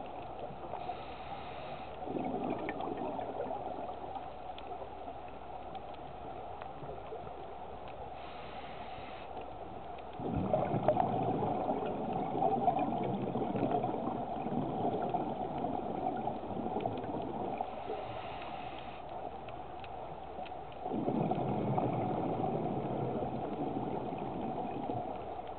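Scuba diver breathing through a regulator underwater: a short hiss of inhaling, then a longer rush of exhaled bubbles, three times over.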